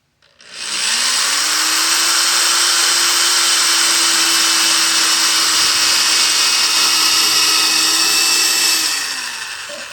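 Electric drill with a concrete drill bit boring into a ceramic flower pot wetted with water. The motor speeds up over about the first second, runs steadily, then winds down near the end.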